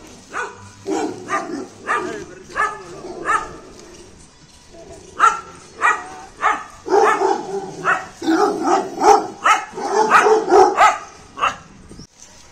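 A dog barking over and over: a run of separate barks for the first three seconds or so, a short pause, then quicker, louder barking for about six seconds that stops shortly before the end.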